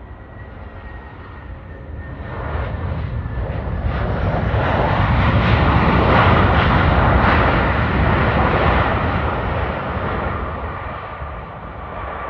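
Airliner passing close by with its engines running. The engine noise swells to a peak about six seconds in and then fades, and its whine drops in pitch as the plane goes past.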